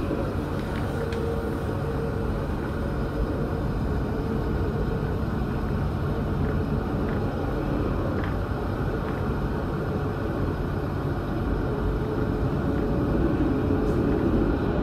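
Alstom Citadis tram running along its track, heard from inside at the front of the car: a steady rumble of wheels on rails and running gear, with a faint whine in the first few seconds.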